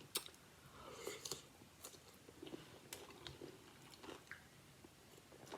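Faint close-up chewing of a mouthful of beef kielbasa, rice and cucumber, with scattered small wet mouth clicks.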